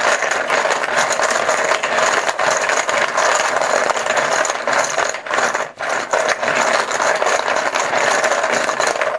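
Poker chips clattering against one another as a hand stirs and shakes them in a bucket: a dense, steady rattle of many small clicks.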